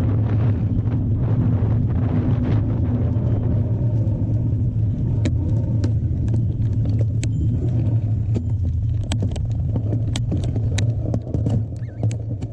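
Steady low rumble of wind buffeting the microphone while a mountain bike is ridden, with many sharp clicks and rattles from the bike over rough trail. The rumble eases near the end.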